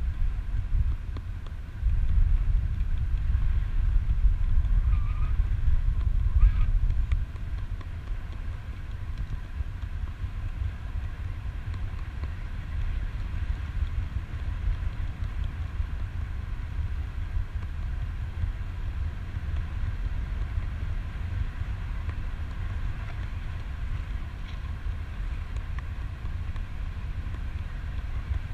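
Wind noise from the airflow of paraglider flight buffeting the camera microphone, heard as a low rumble. It is stronger for the first seven seconds or so, then eases to a steadier, lower level.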